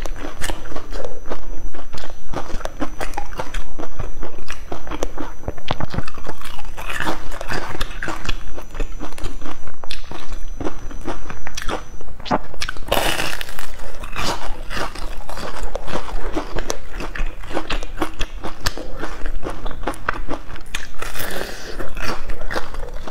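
Close-miked crunching and chewing as a person bites into crispy crumb-coated fried patties: a dense run of crisp crackles throughout. It grows louder about 13 seconds in and again near 21 seconds.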